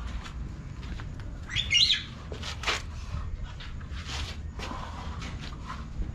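A bird chirping, with one short warbling call about two seconds in, over a steady low rumble and a few scattered clicks.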